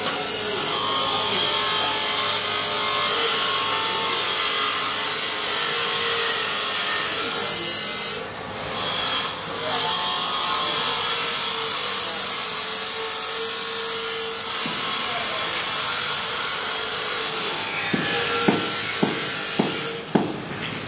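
Steady rasping, grinding workshop noise, like a tool working metal, dipping briefly about eight seconds in. Several sharp clicks come near the end.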